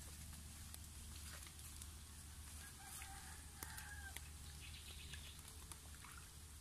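A rooster crowing faintly once, a little over a second long, about three seconds in, with a few small clicks and a low steady hum beneath.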